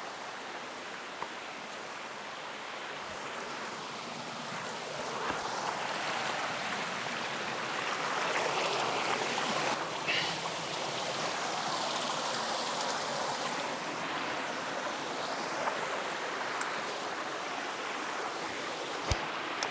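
Creek water flowing: a steady rushing hiss that grows a little louder around the middle, with a few faint clicks.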